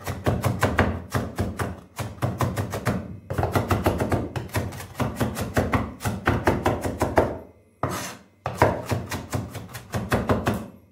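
Kitchen knife chopping rapidly on a wooden cutting board, mincing diced vegetables in quick runs of several strokes a second, with brief pauses about two seconds in and a longer one near eight seconds.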